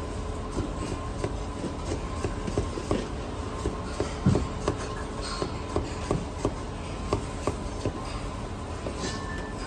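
Kitchen knife slicing bitter gourd on a plastic cutting board: a run of quick, even knocks of the blade meeting the board, about three a second.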